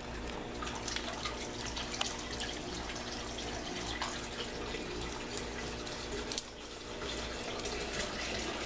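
Water running and trickling in an aquaponic grow bed, with scattered small drips and ticks over a steady faint hum.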